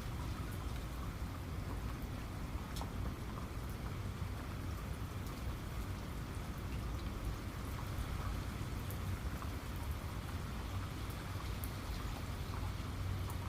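Steady rain falling, a continuous hiss with a low rumble underneath and scattered individual drops ticking close by.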